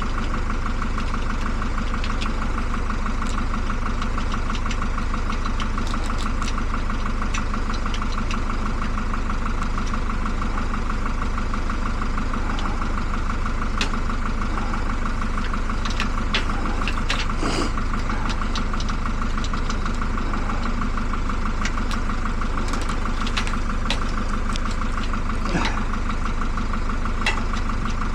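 Vehicle engine idling steadily, with a few faint small clicks and taps over it.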